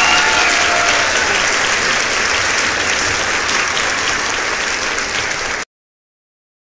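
Canned crowd applause and cheering with a few whistles near the start, cutting off abruptly about five and a half seconds in.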